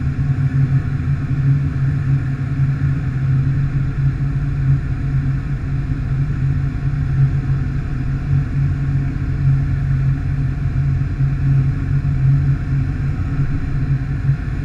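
The engine and propeller of an Evektor light-sport aircraft drone steadily in flight, heard from inside the cockpit.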